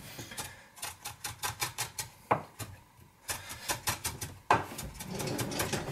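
Kitchen knife chopping ginger finely on a cutting board: quick runs of sharp taps, several a second, with a short pause about halfway through.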